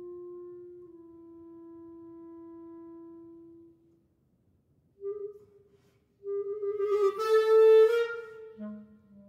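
Solo clarinet: a soft held note fades away, and after a brief silence a short note is followed by a loud, wavering phrase that rises in pitch with a rough, airy accent at its peak, then drops to a low held note near the end.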